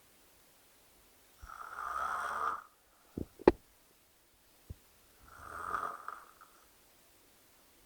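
A person snoring loudly, with two rasping snores a few seconds apart. Between the snores come three sharp clicks; the second is the loudest.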